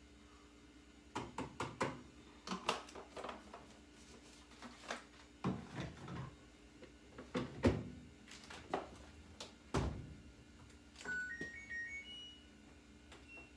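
Plastic detergent bottles knocking and clacking as they are handled and set on a wire shelf, a dozen or so sharp hits. Near the end, a short run of electronic beeps stepping up in pitch from a laundry machine's control panel.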